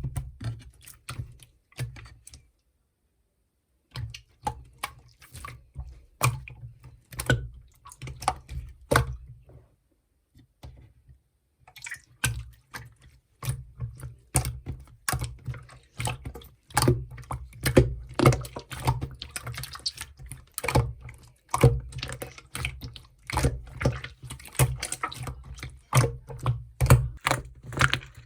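Clear, jelly-textured slime being squeezed, poked and stretched by hand, giving rapid wet clicks and small pops. The clicking stops for a moment about two seconds in, thins out around ten seconds, then comes back dense.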